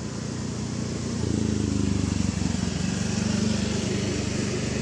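A motor vehicle's engine running steadily, growing louder about a second in.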